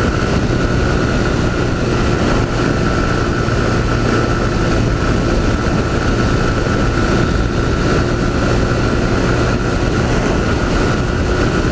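Honda CG 160 Fan's single-cylinder four-stroke engine running hard at steady high road speed, its pitch holding level.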